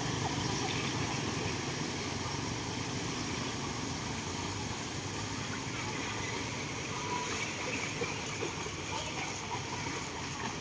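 Steady low rumble of motor scooters riding through floodwater, with faint children's voices and light splashing.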